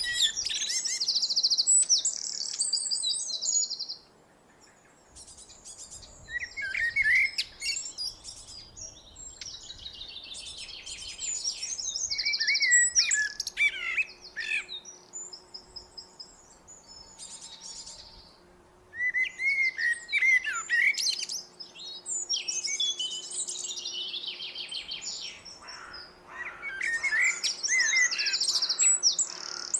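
Blackbird singing: separate song phrases every five to seven seconds. Each phrase is a low, fluty warble that ends in a high, rapid, squeaky twitter.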